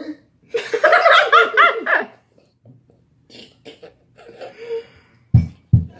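Laughter: a quick run of repeated bursts lasting about a second and a half, then softer scattered giggles, and two dull low thumps near the end.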